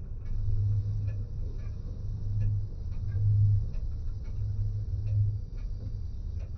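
Low rumble of a vehicle driving along a highway, heard from inside it, swelling and easing irregularly, with faint scattered clicks.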